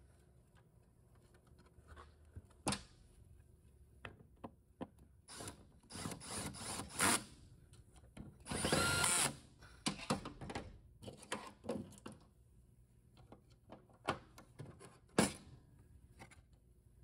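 Cordless drill-driver running in short bursts, driving screws into a VW 01M/01P automatic transmission valve body. The longest run, about a second, comes about nine seconds in. Sharp clicks and knocks of tools and small parts on a metal bench come between the runs.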